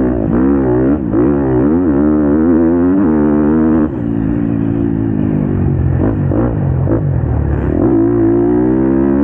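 Motocross bike engine heard onboard at full throttle, its pitch climbing and falling again and again as the rider works the throttle and shifts around the sand track, with a brief dip about four seconds in.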